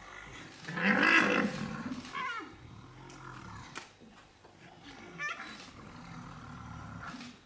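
Rhinos in a face-off: one loud, growling bellow about a second in, then two short high squeals, at about two and five seconds.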